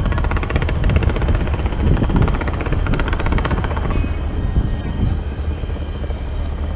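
Fireworks barrage launched from the Burj Khalifa: a fast, even string of pops and cracks for about the first four seconds, thinning to a looser crackle, over a steady low rumble.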